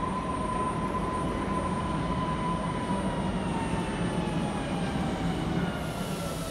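Passenger trains pulling into a station: a steady rumble of wheels on rail, with a thin whine that slowly falls in pitch as they slow.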